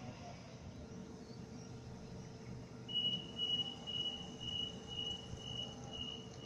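Sydney Trains Waratah electric train's door-closing warning: a high beep repeating about twice a second, starting about three seconds in, over a steady hum, as the train prepares to depart.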